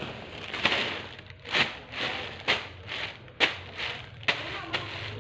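Thin plastic shopping bag rustling and crinkling as it is handled and scrunched, with a sharp crackle about once a second.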